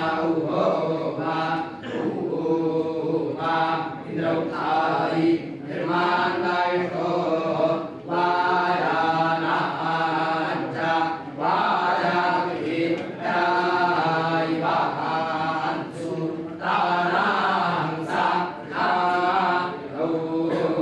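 A group of men chanting a parayana recitation together, in short phrases with brief pauses for breath between them.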